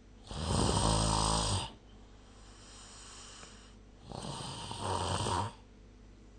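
A sleeping person snoring: two long, low snores about four seconds apart, each lasting over a second.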